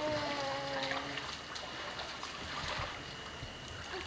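Swimming-pool water splashing and lapping around a baby held and moved in the water. A short drawn-out call in a young child's voice sounds in the first second.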